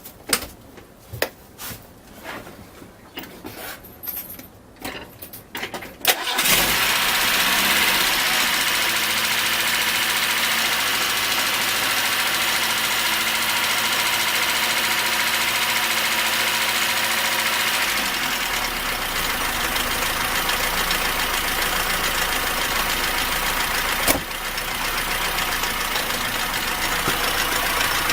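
VAZ (Lada) car engine started with its alternator and water-pump belt removed: some clicks and handling first, then it catches about six seconds in and idles steadily. A knock is still there with the belt off, a clanking sound, which the owner traces to a front pulley loose on its worn key.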